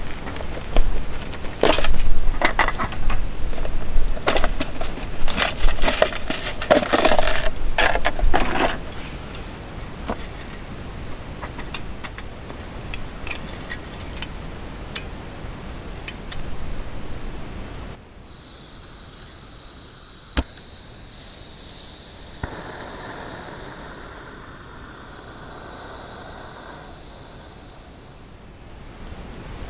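Crickets trilling in one unbroken high-pitched drone. Over the first several seconds there is a run of sharp knocks and clatter with a low rumble; after the level drops, a single click follows.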